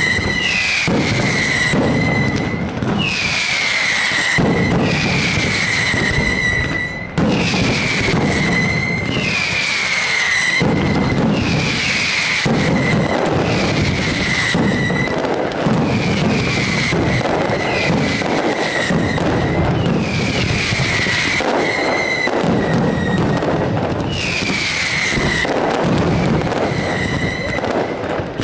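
Mascletà ground fireworks firing without pause: dense, continuous crackling and banging of firecrackers. Over it come whistling fireworks, one after another, each a falling whistle about a second long.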